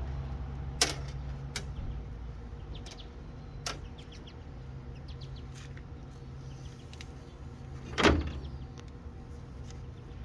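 Scattered small clicks and a few sharp knocks over a steady low hum, the loudest knock, with a dull thud, about eight seconds in: parts and tools being handled during hand work on the Jeep.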